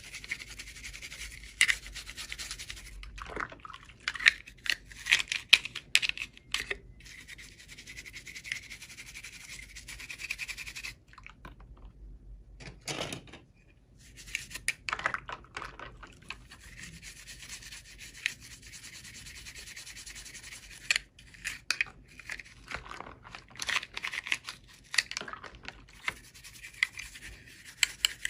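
Hands unboxing toy packaging: rubbing and scratching against the packaging, with many sharp clicks and short scrapes over a steady hiss, and a brief lull about halfway through.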